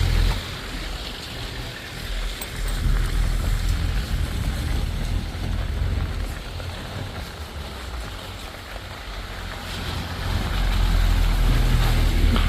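Wind buffeting the microphone during a ride: a heavy, uneven low rumble with a rushing hiss, louder near the start and again near the end.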